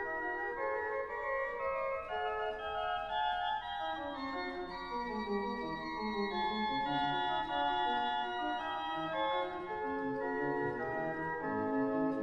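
Slow organ music: held chords of several notes that change every second or so.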